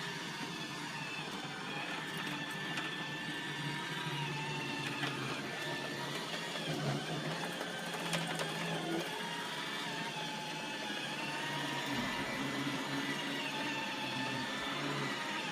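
iRobot Roomba 880 robot vacuum running: a steady motor hum with a higher whine that wavers up and down as it moves, and a few light clicks.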